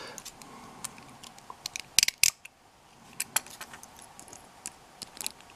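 Small sharp metal clicks and taps from a just-picked wafer cabinet lock and lock pick being worked, a few scattered clicks with the two loudest about two seconds in.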